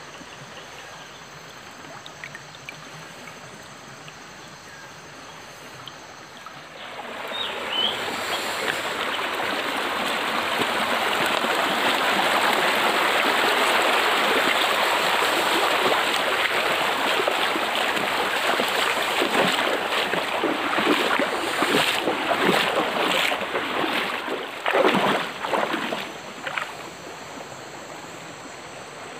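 Water in a shallow forest stream, quiet at first, then rushing and splashing loudly from about seven seconds in, with a run of sharper splashes near the end before it eases off.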